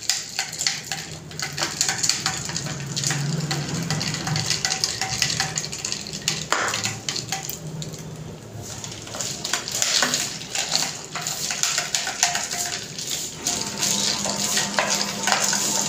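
A steel spoon stirring powdered sugar into a drink in glass tumblers, with a quick, irregular run of clinks and scrapes of metal against glass.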